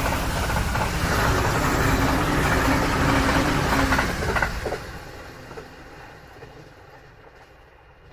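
E259 series Narita Express electric train passing at speed: loud rushing and wheel noise with a low steady tone, which falls away from about five seconds in as the train moves off.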